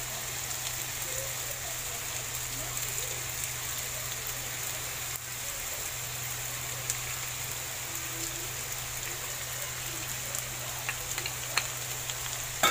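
A stir-fry of tofu, corn and peppers sizzling steadily in a frying pan, with a steady low hum underneath and a few light clicks near the end.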